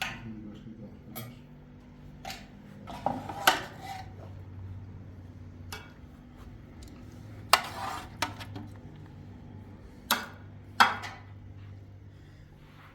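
Metal tools and gear clanking and knocking: scattered single knocks and short scrapes, the loudest about three and a half, seven and a half and eleven seconds in, over a steady low machine hum.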